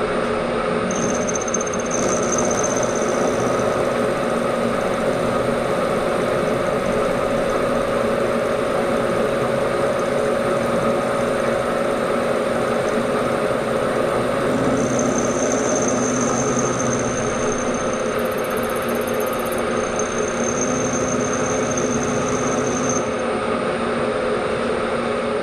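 Bridgeport milling machine running, its end mill cutting a slot along a metal bar: a steady motor and spindle hum with the noise of the cut, and a high whistle that comes and goes several times.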